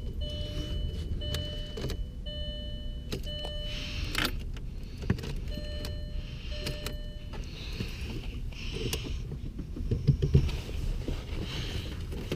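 A car's warning chime sounding in repeated electronic pulses, steady pitch, stopping for a couple of seconds and then sounding again, as the key is turned with the ignition fuse pulled so the engine does not crank. Rustling and a few light knocks near the end.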